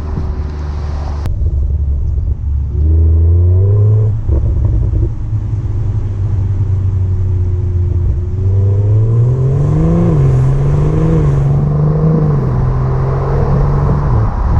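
2020 BMW X3 M40i's 3.0-litre turbocharged inline-six on its stock exhaust with petrol particulate filter. The engine note rises about three seconds in and holds steady, then rises again past the middle, wavers, and drops away near the end. Revs are kept below 3,500 rpm because the engine is in its run-in period.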